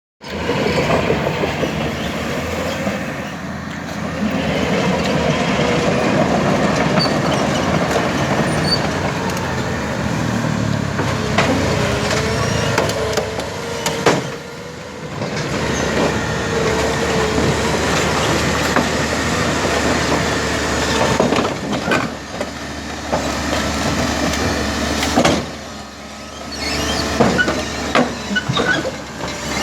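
Caterpillar D6K crawler dozer working: its diesel engine running under load while the steel tracks clank and squeal, with sharp metal knocks now and then.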